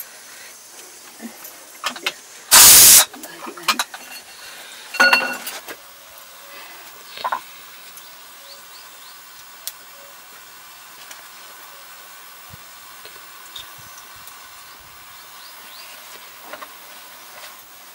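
Iron wok heating over a wood fire: a loud burst of hissing sizzle a couple of seconds in, a ringing metal clink about two seconds later, then a faint steady sizzle with scattered small ticks.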